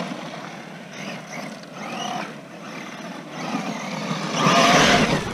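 Redcat TR-MT10E 1/10-scale electric monster truck running on a 3S battery, its brushless motor whining as it speeds up, with tyres on loose dirt. A short rising whine comes about two seconds in, and the loudest, longest burst of acceleration comes near the end.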